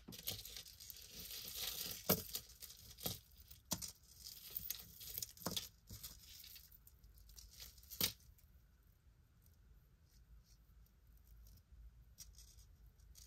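Rustling and crinkling while jewelry is handled and sorted, with a few sharp light clicks, the last about eight seconds in; then near silence.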